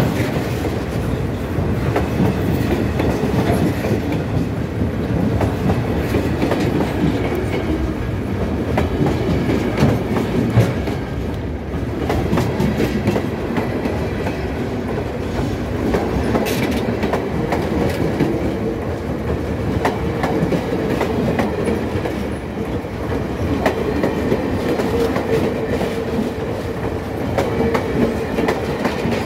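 A train of passenger coaches rolling past close by, its steel wheels clicking and clattering over the rail joints in a steady, continuous run.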